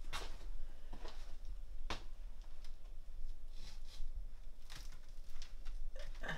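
Handling noise as a cheesecloth-covered tray of fruit slices is lifted onto a hanging drying rack: a few short, irregular rustles and soft knocks over a steady low hum.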